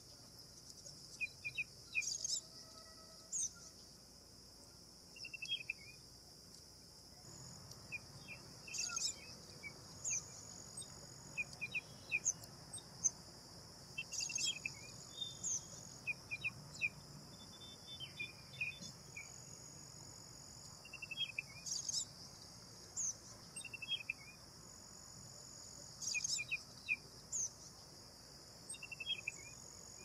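Short bird chirps and calls, repeated every few seconds, over a steady high-pitched insect drone.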